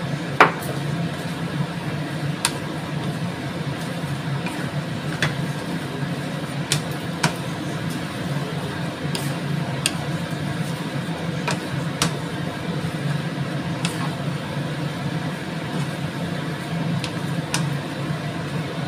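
Wooden spatula stirring and tossing glass noodles in a frying pan, with scattered clicks and knocks against the pan, the sharpest about half a second in, over a steady low hum.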